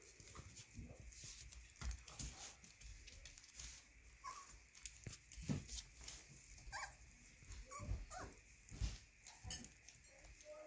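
A litter of 23-day-old puppies making a few short, faint squeaks and whimpers among soft scuffling and rustling as they crawl and tussle on a blanket.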